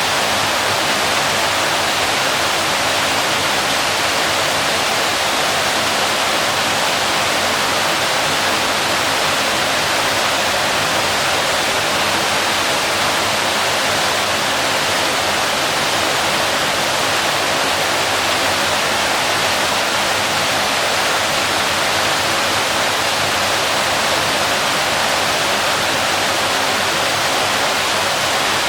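Waterfall: water falling in a steady, continuous rush that does not change.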